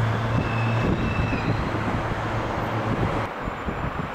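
Steady airport background rumble of distant engines and vehicles, with a low hum that stops abruptly about three seconds in. A faint high whine sounds briefly near the start.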